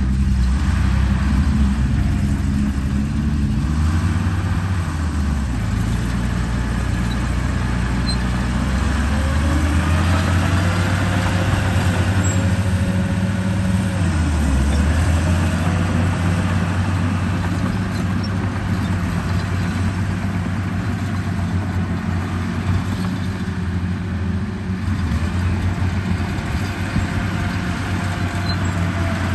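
Radio-controlled construction truck running, with a steady low engine-like drone that shifts in pitch every few seconds. A faint whine rises and falls over it now and then.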